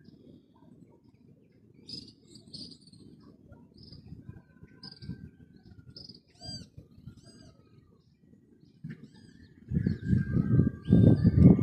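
Birds chirping and calling: many short high chirps, some repeated in quick runs, and a few thin whistled notes, over a low rumble. The low rumble gets much louder near the end.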